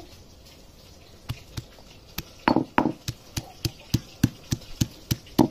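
Stone pestle pounding peeled garlic cloves on a grinding stone: a run of sharp knocks starting about a second in, settling to about three strikes a second, with a few harder blows among them.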